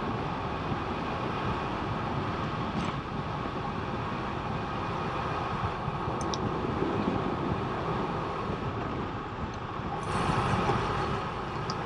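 Steady rush of wind on the camera microphone and tyre rumble from a bicycle riding on asphalt, with a swell of hiss about ten seconds in.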